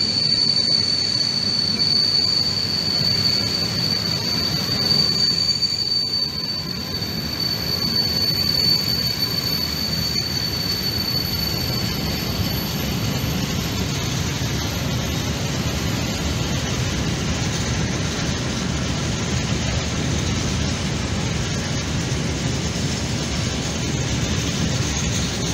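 Long freight train of open coal wagons rolling past: a steady rumble of wheels on rail, with a high steady squeal from the wagons that fades out about halfway through.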